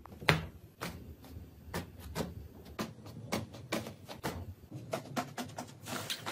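The dried crust of iceberg slime cracking and crunching as fingers press it in and break it into flakes: a string of sharp, irregular cracks, the loudest just after the start. Near the end the broken pieces crackle more densely as the slime is squeezed in the hands.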